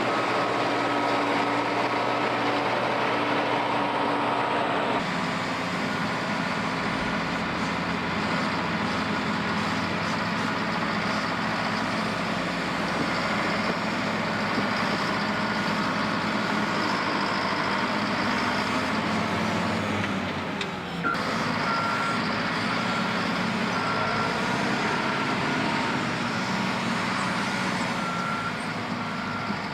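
Heavy diesel construction machinery running, its engine note changing abruptly twice. From about two-thirds of the way through, a reversing alarm beeps steadily, about once a second.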